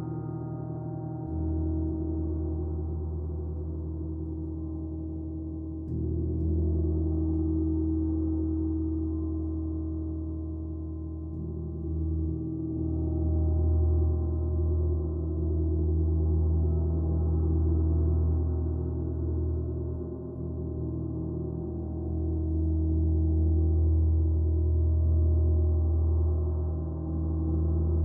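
Gongs ringing in long, low, overlapping tones that swell and fade, with fresh strokes about a second in and at about six seconds.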